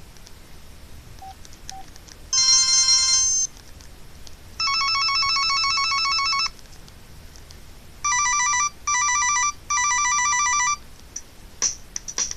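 Casio G'zOne Ravine phone playing several of its built-in electronic ringtones in turn through its speaker: a short chime about two seconds in, then a rapid trilling ring lasting about two seconds, then three short bursts of a pulsed ring. A few clicks come near the end.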